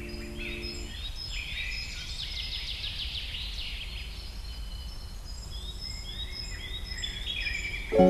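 Songbirds singing: several overlapping chirps, sweeping whistles and a fast trill, over a low steady background noise. A sustained music chord stops about a second in.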